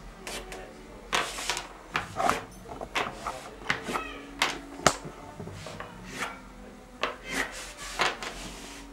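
Pastel or pencil scratching across paper in quick, irregular drawing strokes, with a sharp tap about five seconds in.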